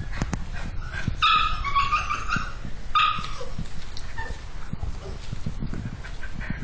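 Small dogs barking and yipping, with a loud run of high-pitched yaps from about a second in and another short one about three seconds in. Scattered low knocks run underneath.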